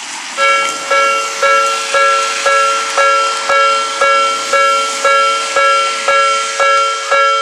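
Japanese railway level-crossing warning alarm starts ringing about half a second in. It gives an even, two-pitched 'kan-kan' strike roughly twice a second over a steady background hiss, the signal that a train is approaching.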